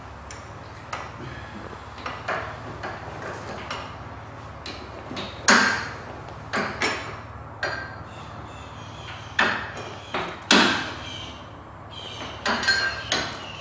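Irregular metal clinks and knocks from a bolt, tools and a leaf spring being handled while the spring is worked into its front pivot on a golf cart's rear suspension, the sharpest knocks about five and a half and ten and a half seconds in. A steady low hum runs underneath.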